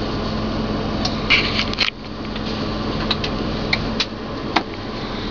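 Steady hiss and low hum of air moving in a car cabin, with several light clicks and taps scattered through it, a small cluster a little over a second in.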